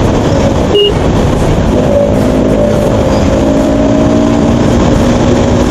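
Bajaj Pulsar NS200's single-cylinder engine running at a steady cruise under heavy wind noise on the rider's microphone, with one short high beep about a second in.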